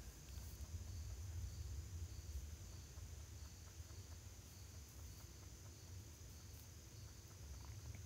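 Faint outdoor ambience: a steady high insect drone with a low rumble underneath.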